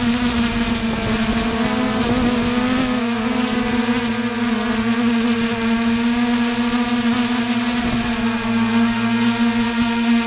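Multirotor drone's propellers and motors giving a steady, high-pitched hum, the pitch wavering slightly about two to three seconds in as the drone descends.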